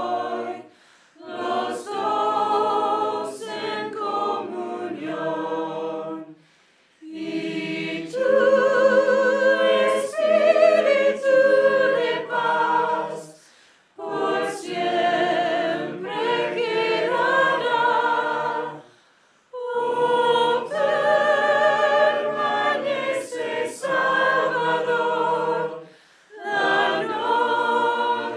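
Mixed choir of men's and women's voices singing a hymn a cappella, in phrases of about five to six seconds with short breaths between them.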